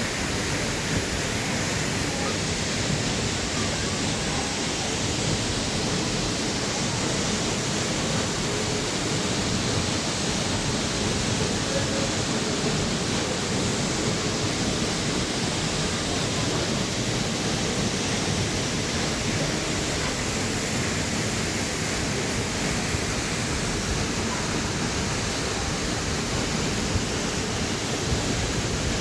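Waterfall's water falling, a steady, even rush with no change in level.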